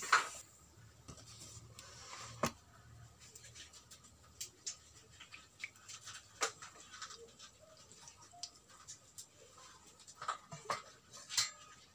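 Faint scattered clicks and light taps of kitchen handling at a wok, with a sharper click about two and a half seconds in and a small cluster near the end.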